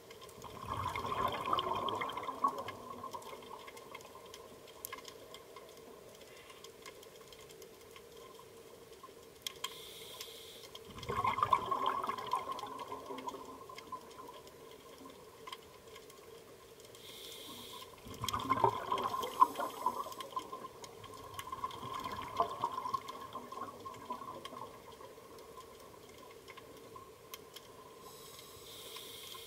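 Scuba diver breathing through a regulator underwater: three breaths about eight seconds apart, each a short hiss of inhalation followed by a longer burst of bubbling exhalation. A faint steady hum runs underneath.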